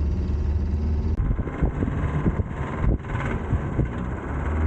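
Minivan engine labouring up a steep mountain grade, a steady low drone with irregular knocks from about a second in. The engine is overheated and has an internal knocking noise, which the driver puts down to heat deforming its internals.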